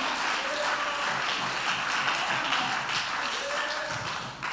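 Church congregation applauding, with scattered voices calling out over the clapping.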